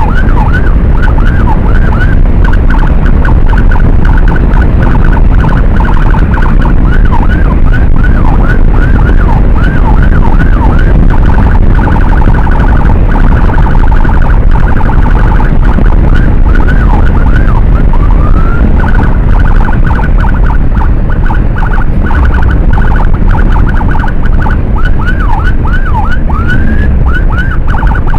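Electronic emergency siren yelping in fast up-and-down sweeps, several a second, with a few slower rising wails. It sounds over the loud low rumble of a moving motorcycle.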